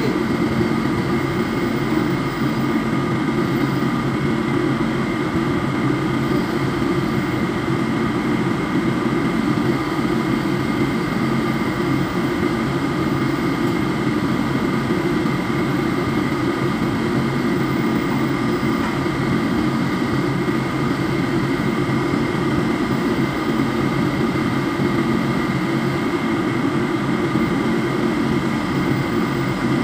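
Ship's machinery running steadily: a constant loud drone with a steady high whine over it.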